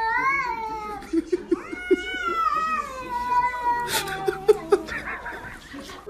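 A cat yowling: two long drawn-out calls, the first bending up and down in pitch, the second longer and slowly falling.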